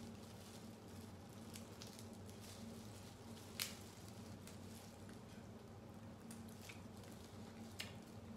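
Crab shells being cracked and picked apart by hands in plastic gloves: soft, faint squishing with scattered small cracks, the sharpest about three and a half seconds in. A low steady hum runs underneath.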